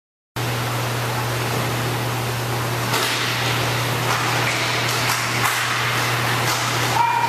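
Indoor roller-hockey rink sound cutting in after a brief silence: a steady hiss and low hum of the hall, with sharp clacks of sticks and puck on the plastic rink floor and a short steady tone near the end.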